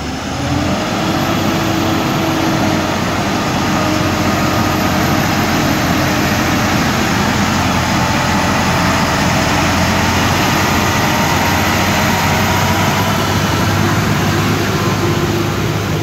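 Heavily loaded Ashok Leyland multi-axle lorry's diesel engine running steadily under load as the truck climbs a hairpin bend and drives slowly past close by.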